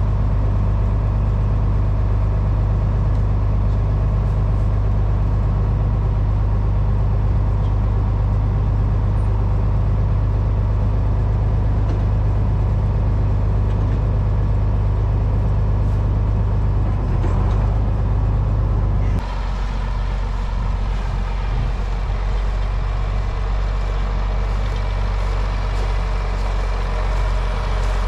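Tractor engine idling steadily, a deep hum with a steady drone above it; about two-thirds of the way through, the sound shifts abruptly to a rougher, less deep running.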